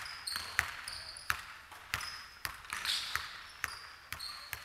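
Basketball bouncing on a hardwood gym floor, sharp irregular thuds about twice a second, with sneakers squeaking on the floor in short high chirps between them.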